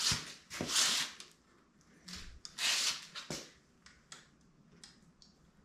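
Windshield mounting brackets being slid and adjusted by hand on a motorcycle's chrome fork tubes: three short scraping rubs in the first half, then a few light clicks.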